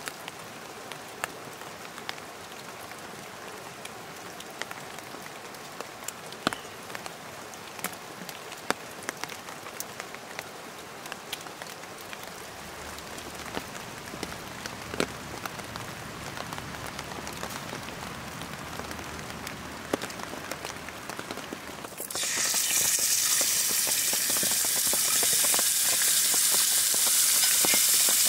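Steady rain falling, with scattered sharp drips ticking. About 22 seconds in, raw pork belly goes into a hot cast-iron skillet and sizzles loudly, drowning out the rain.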